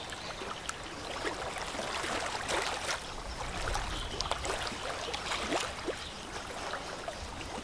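A ship's wake washing against a riverbank: water lapping and splashing in many quick, irregular small splashes over a steady watery wash.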